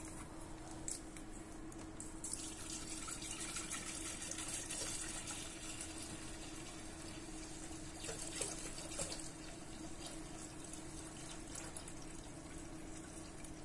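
Water pouring in a steady stream from a 5-litre plastic bottle into the stainless-steel tank of an ultrasonic cleaner, filling it with detergent solution; the pour starts about two seconds in.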